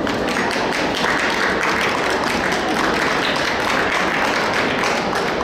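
Crowd noise in a large exhibition hall: a steady murmur of many voices, with frequent sharp claps scattered through it.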